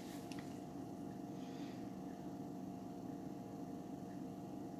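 Steady low electrical hum, like mains hum, as room tone.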